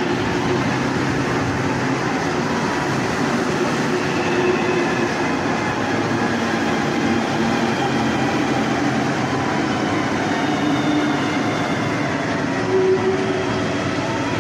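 Steady, loud rushing outdoor noise with faint wavering pitched sounds drifting through it.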